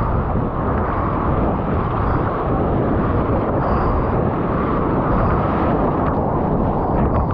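Steady, loud rush of wind and water noise on a POV camera's microphone while stand-up paddle surfing, with no pauses.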